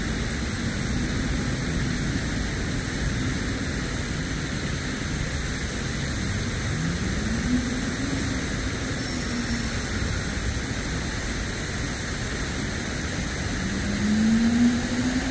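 Steady rush of city road traffic. A vehicle's engine rises in pitch as it accelerates about seven seconds in, and another near the end.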